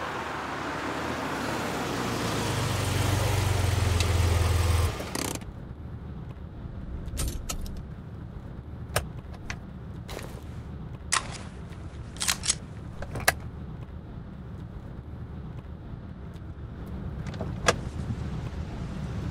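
A broad rush of car noise swells over the first few seconds and cuts off abruptly, leaving a steady low car rumble. Over it come scattered sharp clicks and rattles as hands work at the car's dashboard.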